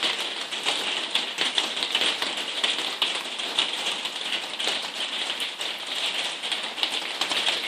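Heavy rain drumming on a conservatory roof, a dense steady patter of countless drops.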